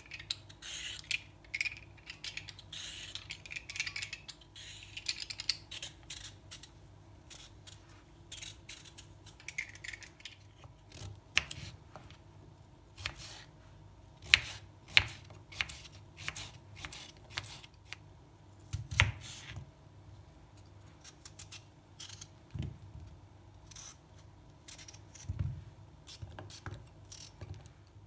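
Kitchen handling sounds: irregular sharp clicks and taps, with rustling and scraping during the first few seconds and again around ten seconds in.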